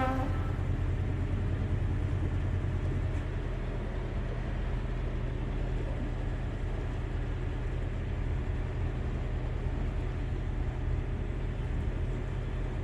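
Narrowboat engine running steadily at cruising speed, a constant low engine note.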